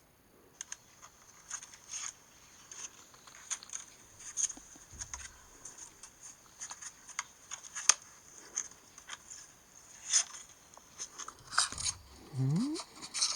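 An iPhone's speaker giving out an irregular run of clicks, crackles and rattling clatters, a glitch noise with no steady rhythm that will not stop.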